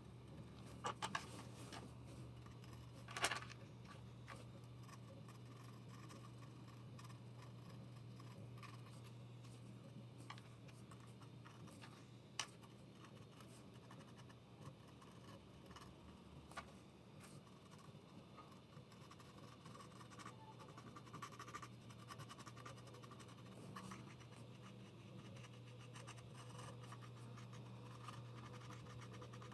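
Faint scratching and scraping of a hand tool working a repair on a ceramic floor tile, with a few sharp clicks, the loudest about three seconds in, over a steady low hum.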